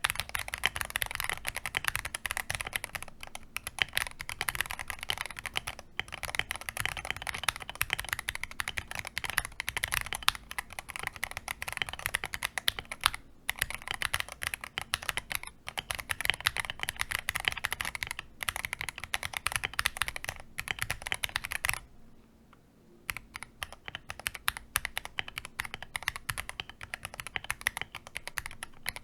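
Fast continuous typing on a modded Akko MOD005 mechanical keyboard, a dense run of keystroke clacks. The typing stops for about a second just past two-thirds of the way through, then resumes.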